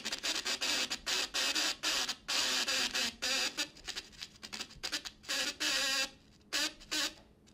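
Small loudspeaker buzzing in stuttering, irregular bursts as a soda-can pop tab held against its cone makes and breaks the circuit: the cone's own movement keeps interrupting the current, turning a single click into a rough tone. The buzz stops and starts unevenly and dies down near the end.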